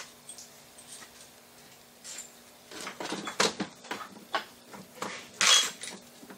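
A hand file scraping on steel in short strokes, with light metal clinks, starting about halfway in; the loudest stroke comes near the end. Weld spatter is being filed out of the inside of the part.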